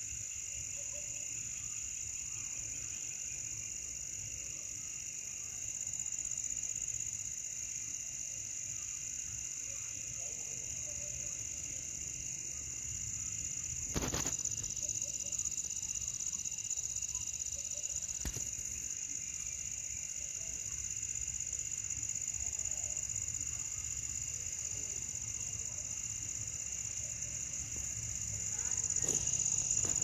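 Steady, high-pitched night chorus of crickets, unbroken throughout. Two sharp clicks stand out about halfway through.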